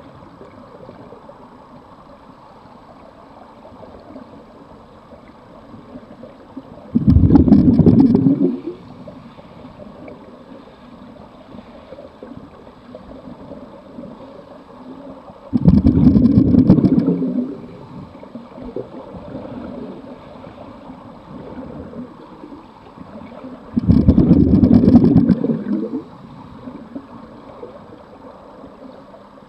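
Scuba diver's exhaled breath bubbling out of the regulator underwater, three loud bursts about eight seconds apart, with a quiet steady underwater hiss between them.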